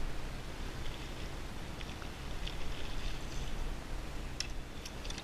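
Water sounds around a kayak out on open water: a steady rumble and hiss, with a few faint ticks in the second half.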